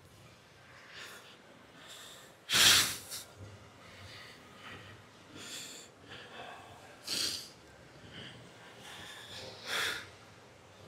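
A man's forceful breaths and exhalations in separate bursts, the loudest about two and a half seconds in and three smaller ones later, as he holds flexing poses.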